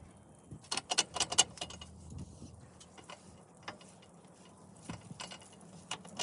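Sharp metallic clicks and rattles of hand tools and car parts being handled: a quick cluster about a second in, then a few single clicks spread through the rest.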